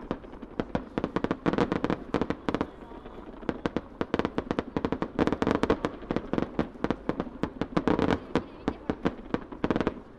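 Starmine fireworks barrage: small shells launching and bursting in quick succession, many sharp reports a second in dense clusters with short lulls between.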